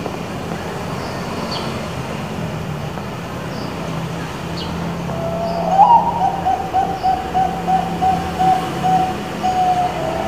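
A Bangkok-bred zebra dove (perkutut bangkok) singing. About halfway through, a rising opening note leads into a long run of quick, even coos, about three a second, lasting some four seconds. A steady low hum runs underneath.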